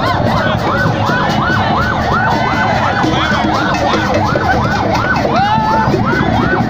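A siren yelping in quick rising-and-falling sweeps, about three a second, over the noise of a celebrating crowd.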